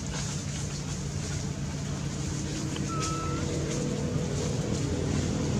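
A steady engine hum, growing a little louder near the end, with a short whistled note about three seconds in.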